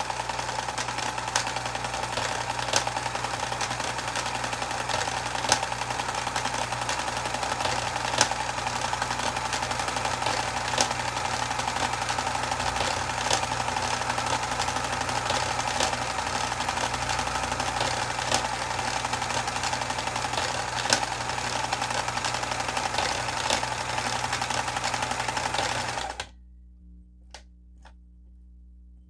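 Vintage Brother Pacesetter XL703 home sewing machine running steadily while sewing a decorative stitch: motor hum with rapid needle clatter and a sharper tick every couple of seconds. It stops about 26 seconds in, followed by a few soft clicks.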